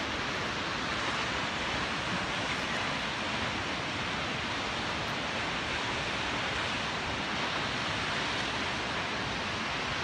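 Kegon Falls, a tall waterfall, rushing in a steady, unbroken hiss heard from the clifftop viewpoint above it.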